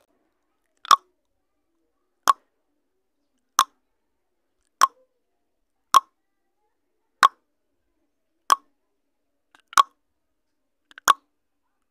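Countdown timer sound effect: a short blip about every second and a quarter, nine times, one for each number of the countdown.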